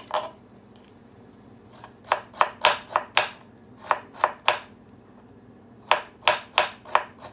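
Knife slicing peeled ginger into thin slivers on a wooden cutting board: quick knocks of the blade on the board in three runs, with short pauses between.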